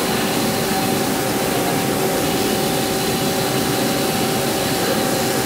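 CNC lathe running steadily with its spindle turning while a boring bar takes a light skim cut inside a bore. The machine makes an even hum with a few steady whining tones.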